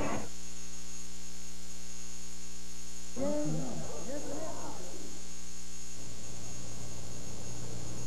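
Loud, steady electrical mains hum with a stack of evenly spaced overtones, with a short voice-like sound gliding in pitch about three seconds in. About six seconds in the hum changes to a plainer hiss.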